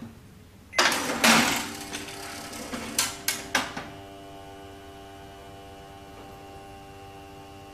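Casio SE-G1 cash register printing its Z closing report. It starts with a loud rattling burst and three sharp clicks, then the thermal printer's steady whirring hum as the receipt feeds out.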